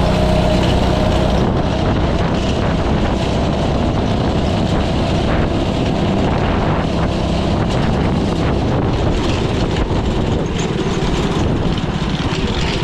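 Harbor Freight Predator 212 single-cylinder four-stroke go-kart engine with a stage one kit running hard under load at about 23–24 mph over a rough grass field. The level eases slightly near the end.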